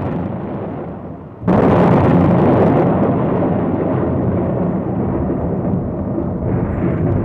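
Thunder: a rumble dies down, then a sudden loud crack about a second and a half in rolls on into a long rumble.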